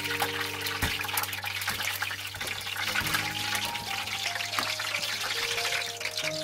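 Hot oil sizzling and crackling steadily as battered chives deep-fry, over background music of slow held notes.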